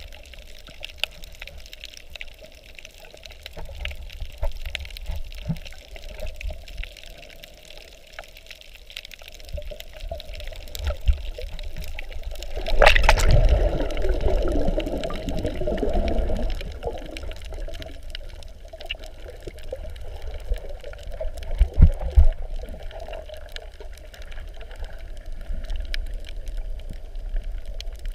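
Underwater water noise around a diving camera: a low, muffled rumble with scattered crackling clicks. About halfway through, a sharp click is followed by a few seconds of louder churning bubbles.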